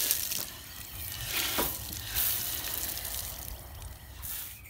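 Water running from a garden hose onto soil, a hissing spray.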